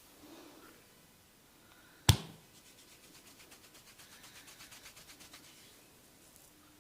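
A barber's hands working a client's scalp in a head massage: one loud, sharp crack about two seconds in, then a quick, even run of light scratching strokes through the hair, about eight to ten a second, for roughly three seconds.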